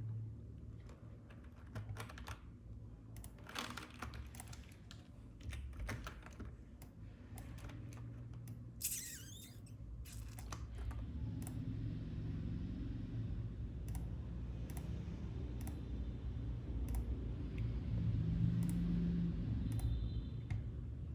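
Computer keyboard keys clicking irregularly, a few scattered strokes at a time, over a low steady hum.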